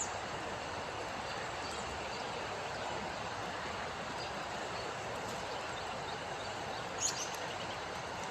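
Steady rushing of a swollen, flooded river after heavy rain, with a short bird chirp about seven seconds in.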